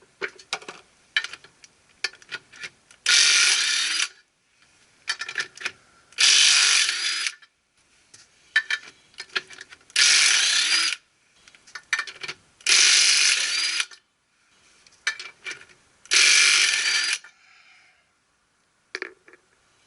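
Ratchet mechanism clicking: scattered single clicks alternate with about a second of fast continuous ratcheting, five times over.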